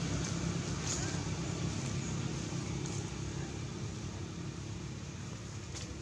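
Steady low engine hum, like a vehicle running nearby, easing off slowly, with a couple of faint clicks.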